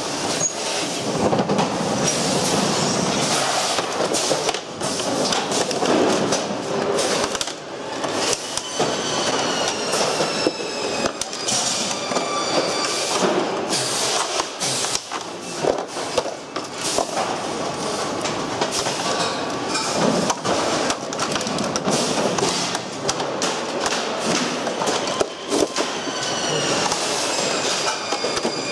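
Hand tools clicking and plastic and metal parts clattering as a pachinko machine's frame is taken apart, over a steady workshop din. Twice a high squealing whine bends in pitch for a few seconds.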